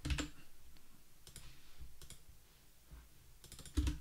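Computer keyboard keys clicking in a few short bursts of typing with pauses between, the busiest and loudest burst near the end.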